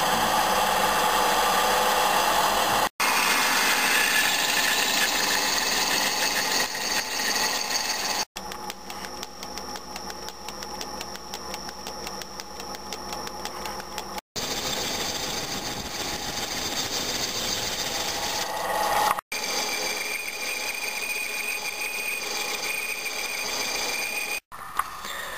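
Metal lathe running and cutting a duralumin workpiece: drilled into its centre from the tailstock, then faced with a turning tool. The machine noise comes in several short clips, each cut off abruptly every five or six seconds.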